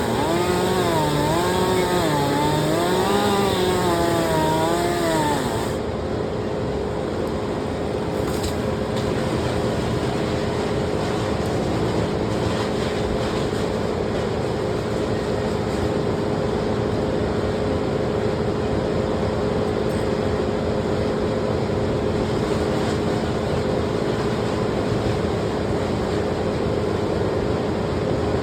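Chainsaw running, its engine pitch swinging up and down for about the first six seconds, then settling into a steady engine drone for the rest.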